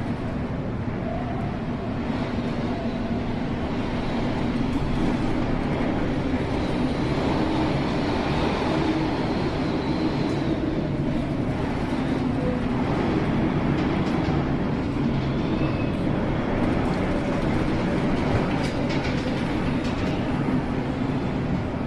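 Steady rumble on board a ship in a storm-force sea: a low engine drone under a continuous rushing of wind and water.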